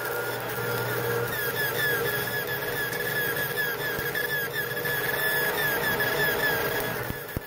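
Stick-welding arc from a homemade car-alternator DC welder burning on a steel shovel: a steady crackling hiss, with a short, high squeak repeating about three times a second.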